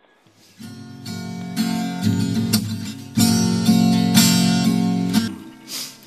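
Acoustic guitar strumming a song's introduction. It starts about half a second in and grows louder about three seconds in.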